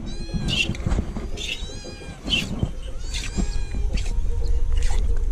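Domestic cat meowing repeatedly, several short rising-and-falling calls about a second apart, over the rhythmic squirts of hand-milking into a metal pail.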